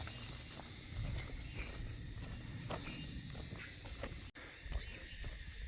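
Outdoor nature ambience: a steady high insect hiss, with a few faint footsteps and low rumble from wind on the microphone.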